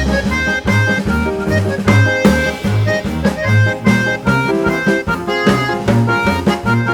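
Background music: an upbeat instrumental with a steady drum beat, bass line and reedy melody notes.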